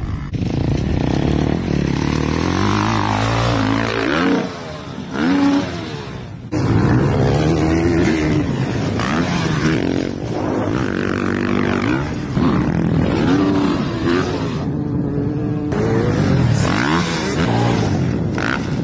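Off-road engines revving hard, the pitch climbing and falling again and again with the throttle. First comes quad-bike engines on sand dunes; after a cut about six and a half seconds in, it is motocross dirt bike engines on a dirt track.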